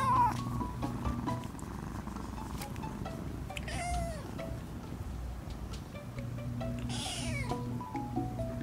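Young tabby kitten mewing: three short, high, wavering mews, one at the start, one midway and one about seven seconds in. Soft background music runs underneath, with a steady low note and a stepping melody.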